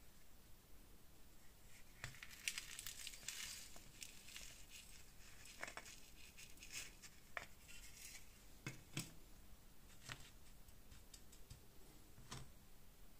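Faint rattle of coarse granules sliding out of a small metal tray into a crucible, thickest about two to five seconds in, followed by a few separate light clicks and taps.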